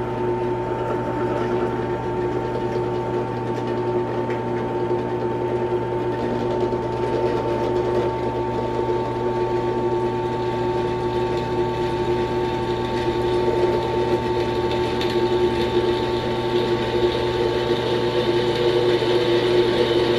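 Ryobi 10-inch benchtop drill press motor running with a steady hum and whine as its twist bit is fed down into a piece of metal. The sound gets a little louder toward the end.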